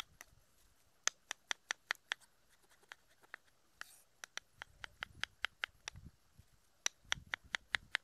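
Kitchen knife chopping tomatoes on a wooden cutting board: quick runs of sharp knocks, about five a second, with a short pause near the middle.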